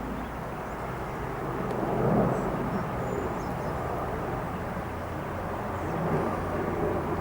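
Cessna 172's single piston engine and propeller droning steadily at low power as the plane lands, with a brief swell about two seconds in.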